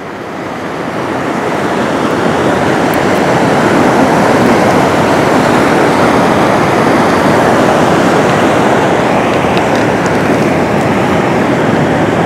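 Fast-flowing river water rushing steadily, the river running high with snowmelt. The rushing grows louder over the first couple of seconds, then holds level.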